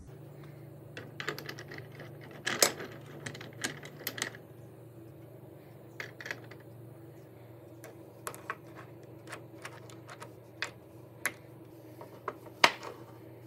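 Cast aluminum ingots and bars clinking and tapping against each other and the wooden shelf as they are handled and set down. The clicks come sharp and irregular, loudest about two and a half seconds in and again near the end.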